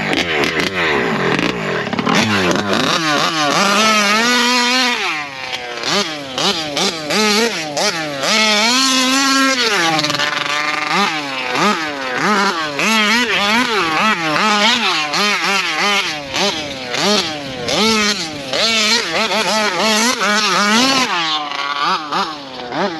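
Taylor RC 55cc two-stroke engine of a large-scale RC truck being driven, revving up and down over and over, its pitch climbing and falling about once a second with a few longer high holds.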